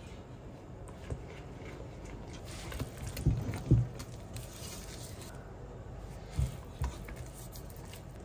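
Fork stirring thick carrot cake batter in a stainless steel pot, with a few soft knocks of the fork against the pot, the loudest two close together near the middle.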